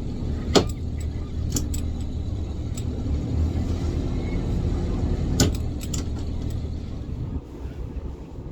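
A boat's engine running with a steady low rumble, with a few sharp knocks on top, the loudest about half a second in and another near five and a half seconds.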